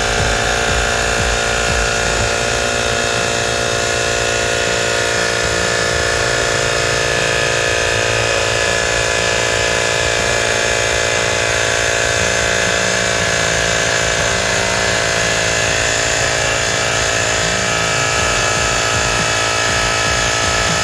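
Small electric tire inflator running steadily with a constant motor hum, pumping air into a 27.5-inch mountain bike inner tube, which reaches about 20 psi.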